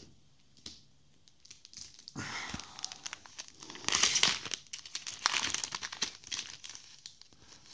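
Foil wrapper of a Z/X trading-card booster pack crinkling as it is handled and torn open, starting about two seconds in and loudest around four seconds in.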